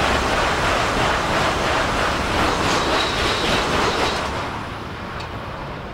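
Shinkansen bullet train passing close by at high speed: a loud rush of air and wheels with a quick regular pulsing as the cars go by. It fades away over the last couple of seconds.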